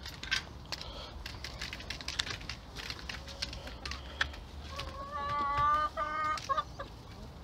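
Chickens clucking, with a longer pitched call about five seconds in, over scattered light clicks.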